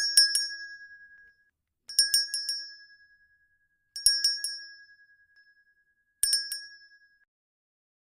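A small bell rung in quick runs of four or five strikes, each run ringing out briefly. The runs come about every two seconds, four in all.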